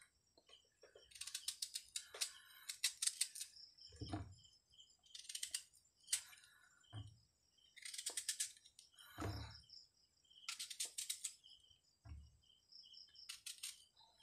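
Knife scraping and cutting through the skin and crisp flesh of a hard, unripe Indian mango: short bursts of rapid crunchy scratching every two to three seconds, with a few dull thumps between them.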